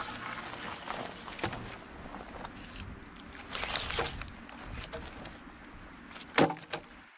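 Cut wooden logs knocking and thudding as they are stacked onto a woodpile, with rustling in between; the loudest knock comes near the end.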